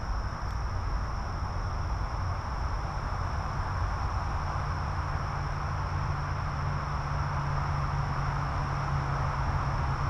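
Steady low outdoor rumble with a constant high, thin insect drone. A low steady hum joins about four seconds in.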